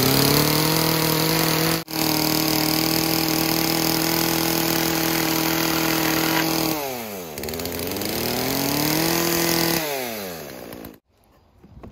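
Two-stroke gas chainsaw running at high revs while cutting through 1-inch pine boards, with a brief break about two seconds in. Past the middle its engine note falls and climbs back up, then falls again and cuts off near the end.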